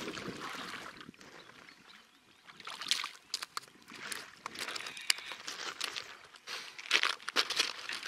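Water splashing and lapping at the shoreline as a hooked fish is pulled through the shallows, then irregular crunching and rustling from about two seconds in as the fish and feeder are dragged onto the sand and handled on the pebbly beach.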